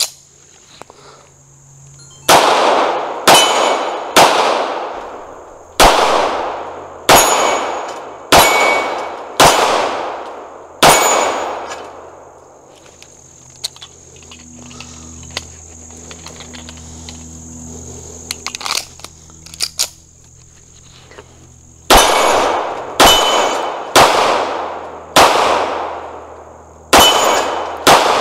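CZ 75 SP-01 Competition 9mm pistol firing two strings of shots about a second apart, roughly eight, then after a pause of about ten seconds roughly seven more, each shot ringing out with a long echoing tail.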